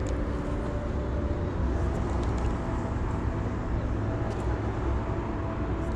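Steady low rumble of road traffic crossing the bridge overhead, with a faint steady drone and a few faint light clicks.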